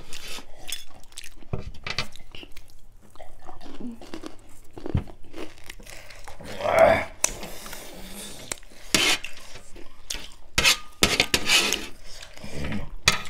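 Cutlery clicking and clinking against dishes during eating, with crunchy chewing of dry puffed-rice chatpate. A brief vocal sound comes about seven seconds in.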